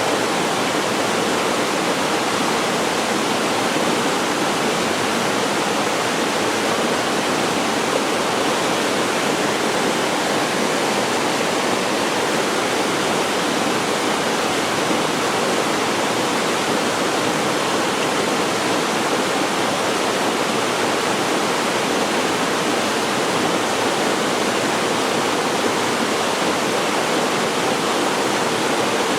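Waterfall crashing steadily into a rocky mountain-valley pool, a constant even rush of falling water with no change in level.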